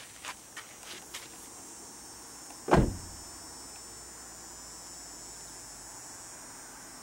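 A few light clicks, then one loud, short thump a little under three seconds in, over a steady high-pitched hiss.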